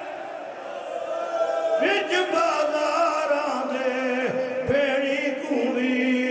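A man chanting a lament into microphones, his amplified voice holding long, wavering notes.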